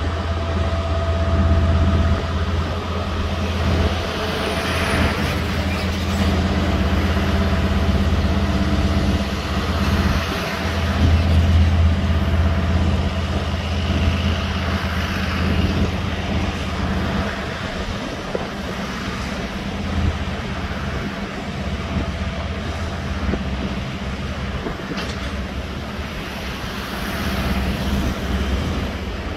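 KiwiRail DL class diesel-electric locomotive working under load as it pulls a container train away, with a steady low engine drone mixed with the rumble of container wagons rolling past. The sound eases a little in the second half as the locomotive draws away.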